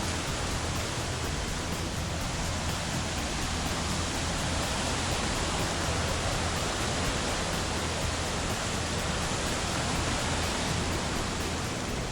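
Rushing water of a fast mountain stream: a dense, steady noise of turbulent water with no breaks.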